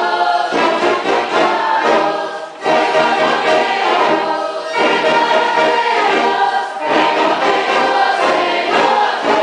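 Choir singing a hymn in unison with the church orchestra accompanying, in phrases of about two seconds with short breaths between them.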